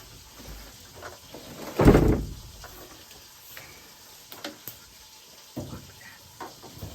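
Cardboard box and packaging being handled while a heavy boxed unit is worked loose, with one loud thump about two seconds in and scattered knocks and scrapes after it.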